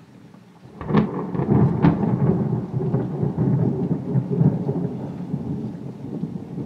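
Thunder in a heavy rainstorm: after a moment of rain, a sudden sharp crack about a second in and another soon after, then a long deep rumble that slowly dies away.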